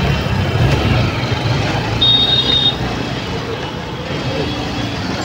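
Steady motorbike engine and road noise in dense night-time city traffic. About two seconds in, a short high-pitched horn beep sounds.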